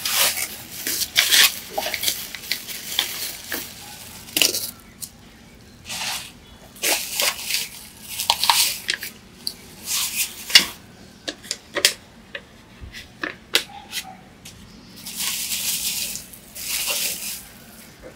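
Plastic bubble wrap and a cardboard box crinkling and rustling as they are handled, in irregular short bursts, with scattered clicks and taps of small hard plastic vacuum-cleaner parts.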